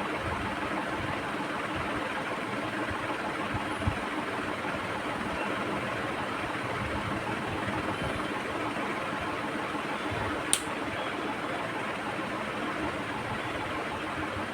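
Steady mechanical whirring hum with no changes, broken by a faint click about four seconds in and a sharper click about ten and a half seconds in.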